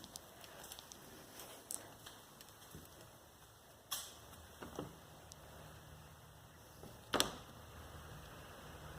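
Faint, scattered clicks and knocks, the loudest about seven seconds in, over a low steady hum that comes in about five seconds in.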